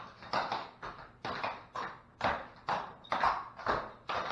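Clogging shoe taps striking a hard floor as dancers step a high horse: a steady series of sharp taps, about two a second.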